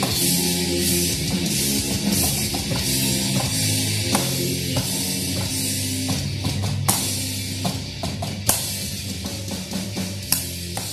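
Progressive-metal song with electric guitar and a drum kit, played along on an electronic drum kit. The music is busy at first; about halfway it thins to a few separate accented hits while the level slowly falls.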